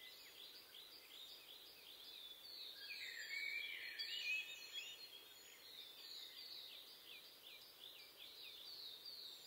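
Small songbirds singing: quick series of short, high, down-slurred notes repeated several times a second, with a busier tangle of song about three to four seconds in.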